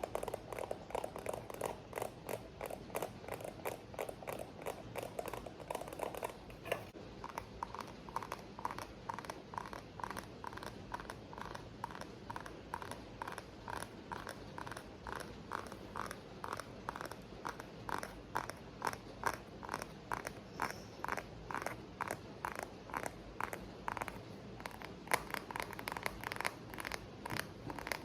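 Fingers tapping quickly and steadily on objects, several taps a second, over a steady hiss of rain. The tone of the tapping shifts higher a few seconds in and gets brighter near the end.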